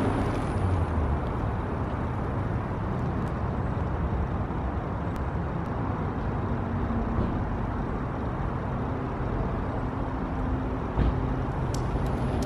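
Steady outdoor street noise: a low rumble with hiss, faint humming tones partway through, and a single sharp knock about eleven seconds in.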